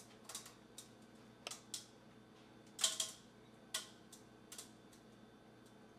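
Scattered light clicks and knocks of a metal mesh strainer and bowl against a metal pot while flan mixture is strained, the loudest knock about three seconds in.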